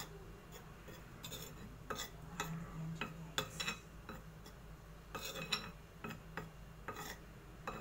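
Metal spoon stirring dry flour in a ceramic bowl, clinking and scraping against the bowl's rim and sides in irregular taps.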